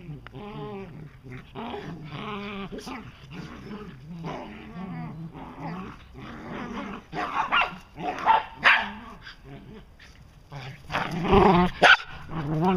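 Shetland sheepdogs play-fighting: a run of play growls and grumbles, then from about seven seconds in sharper barks and yips, loudest near the end.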